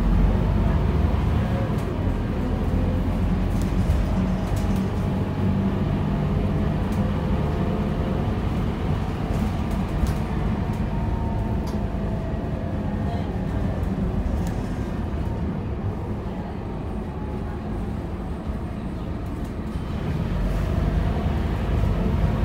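Scania K230UB double-decker bus on the move, heard from inside the passenger cabin: a steady low engine and road rumble, with the engine note rising and falling. It eases off for a few seconds past the middle and picks up again near the end.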